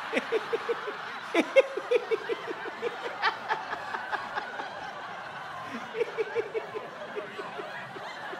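Rhythmic chuckling laughter in two runs of short, even pulses, the first at the start and the second about six seconds in.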